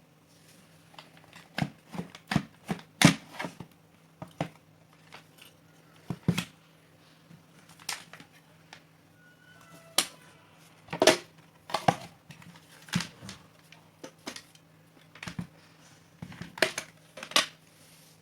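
Irregular clicks, taps and knocks of small hard parts being handled, some louder than others, over a faint steady hum.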